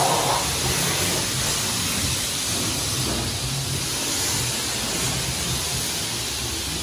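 Self-service car wash pressure-washer lance spraying a steady high-pressure jet of water onto a car's bodywork, a continuous hiss.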